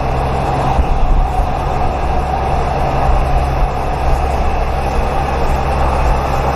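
Steady, loud vehicle running noise: an even rumble with a constant low hum and a steady mid-pitched tone.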